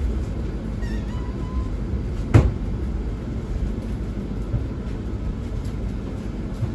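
Pesa EN97 electric multiple unit running along the track, heard from inside the car as a steady low rumble, with a single sharp knock about two and a half seconds in.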